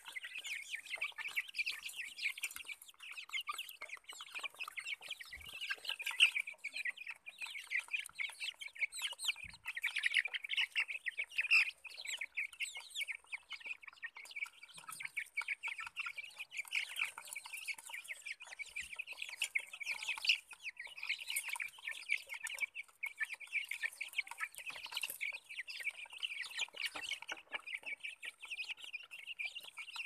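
A flock of young chickens calling constantly, many overlapping high-pitched peeps and clucks.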